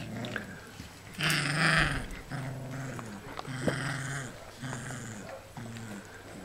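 Alaskan malamute puppies play-growling as they wrestle: a run of about six short growls, the loudest a little after one second in.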